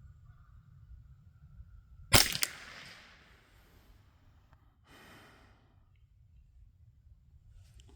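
A single sharp crack from a CZ 512 semi-automatic .22 LR rifle about two seconds in, with a short fading tail. About three seconds later there is a brief, soft breathy hiss.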